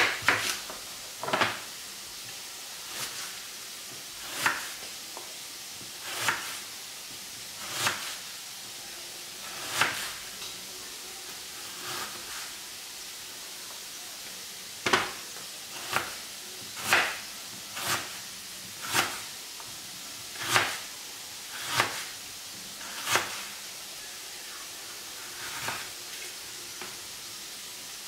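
Kitchen knife slicing an onion into half rings on a plastic cutting board: a sharp knock each time the blade goes through to the board, first every second or two, then about once a second for a stretch past the middle. A steady frying sizzle runs underneath.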